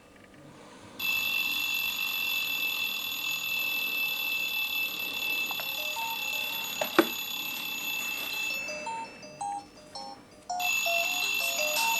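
A Sony Xperia alarm tone rings out high and steady from about a second in, breaks off for about two seconds near the end, then comes back. From about halfway, an iPhone 4s incoming-call ringtone plays a marimba-style melody of short notes alongside it, and a sharp click is heard a little past the middle.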